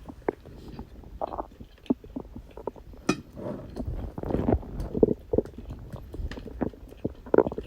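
Human stomach and intestines gurgling while digesting: many short squelches and pops, with a longer bubbling rumble from about three to five and a half seconds in and a sharp squelch near the end.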